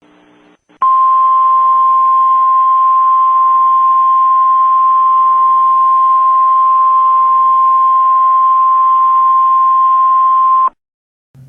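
Emergency alert tone: a single loud, steady, high tone that starts about a second in and cuts off abruptly just before the end. It is the NOAA Weather Radio warning alarm tone of about 1050 Hz, which signals that a warning message is about to be read.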